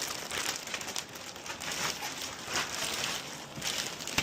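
Cardboard packaging being handled and pulled apart: irregular rustling and scraping, rising and falling every second or so.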